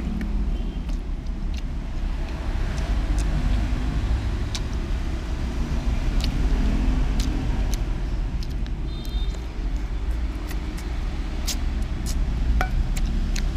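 Steady low rumble of road traffic, with scattered sharp clicks and smacks from eating close to the microphone.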